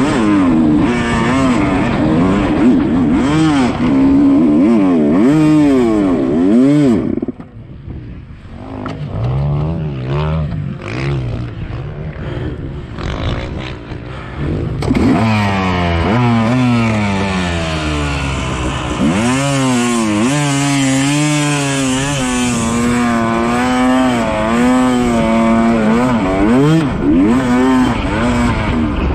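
Yamaha YZ250 two-stroke dirt bike engine revving up and down under throttle as it is ridden. Its pitch keeps climbing and falling. About seven seconds in it drops back to a lower, quieter running for several seconds, then picks up and revs hard again.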